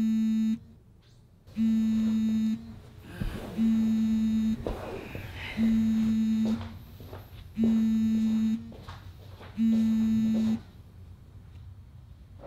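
Mobile phone buzzing with an incoming call: one-second buzzes about two seconds apart, six in all, then it stops. Between the second and fourth buzz there is rustling with a couple of knocks as someone gets up off a couch.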